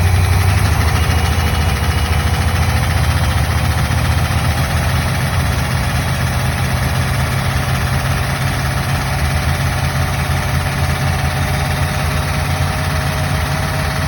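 1964 Buick Nailhead V8 with headers idling steadily just after a fresh rocker shaft assembly was fitted, with a faint tone that climbs slowly in pitch. The valvetrain runs far quieter than before, though the owner still hears a lot of knocking from the passenger-side bank.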